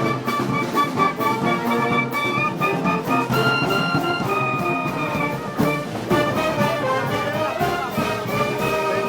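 Brass band playing Moros y Cristianos festival music: held brass notes that step from pitch to pitch over a steady percussion beat.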